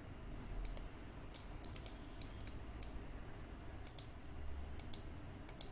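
Computer mouse clicking: a dozen or so short, sharp clicks at irregular spacing, some in quick pairs, as an axis is clicked again and again without the selection taking.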